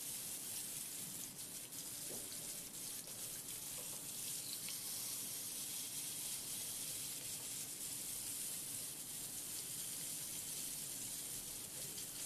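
Marinated chicken leg quarters searing in hot olive oil in a nonstick frying pan over high heat: a steady sizzling hiss with a few faint spits.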